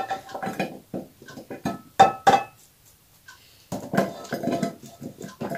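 A spatula scraping around a stainless steel bowl while chunks of diced potato and minced meat tumble into a glass baking dish. It makes a run of irregular knocks, clinks and soft thuds.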